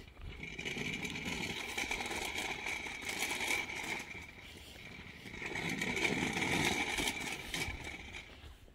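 Kick scooter's small wheels rolling on asphalt with a steady hum and light rattle. It grows louder twice, once early and again past the middle.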